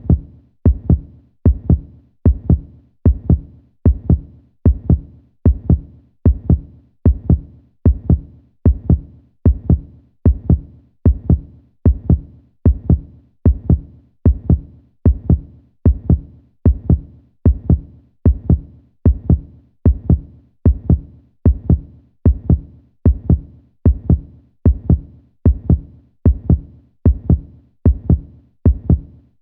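Human heartbeat: a steady lub-dub of paired low thumps, repeating evenly a little faster than once a second.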